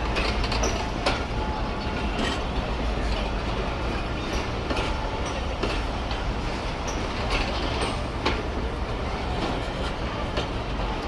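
Passenger train coaches rolling slowly into a station, wheels clicking irregularly over rail joints and points, with a steady rumble and a few brief faint wheel squeals.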